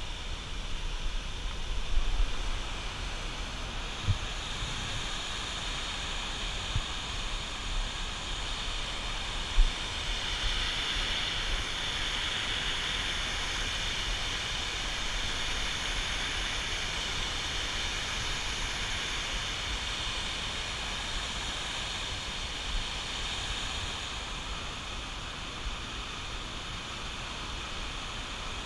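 Steady rush of water pouring over a lock-and-dam spillway, with a low rumble of wind on the microphone and a few short knocks near the start and about ten seconds in.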